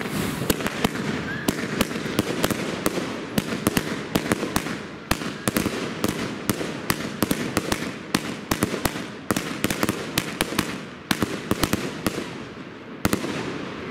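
Pangu Fireworks 'Colorful City' consumer firework cake firing a rapid run of shots, sharp bangs about two to three a second over a steady hiss. The shots stop about a second before the end.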